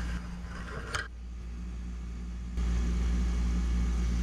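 A steady low machine hum with a light click about a second in. The hum steps up in loudness about two and a half seconds in and then holds steady.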